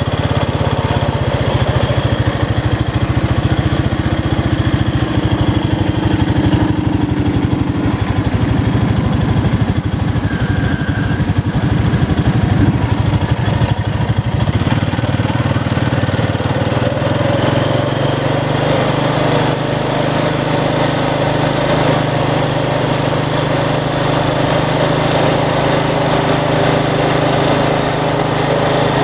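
ATV engine running steadily while riding a trail, its note changing pitch about halfway through as the speed changes.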